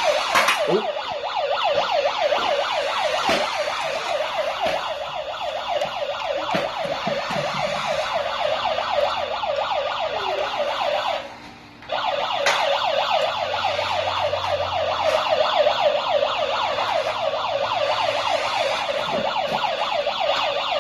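Prextex remote-control toy police car's electronic siren, a fast yelp repeating several times a second, sounding while the car is driven. It cuts out for about half a second a little past halfway and then starts again.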